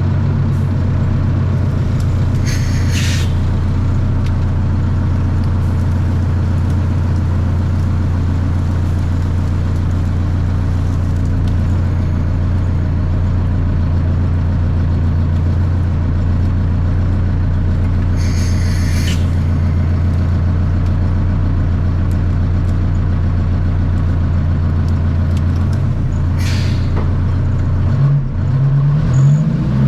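Wheel dozer's diesel engine running steadily, with three short hisses along the way. Near the end the engine pitch swings up and down as it is revved.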